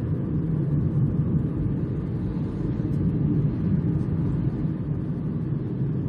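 Steady rumble of a car being driven: engine and road noise heard from inside the cabin.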